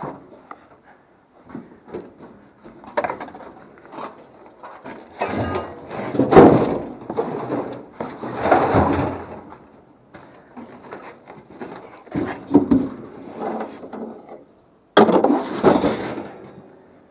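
Scrap being handled and loaded: scattered knocks and clatters, with three longer, louder bangs and scrapes, the last starting suddenly.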